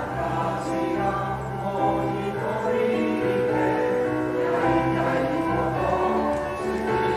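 Choir singing in chords, the voices holding notes and moving together from one chord to the next.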